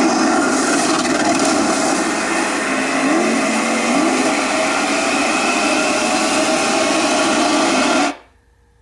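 Rapoo A500 Bluetooth portable speaker playing a loud, dense, noise-heavy track, cutting off suddenly about eight seconds in.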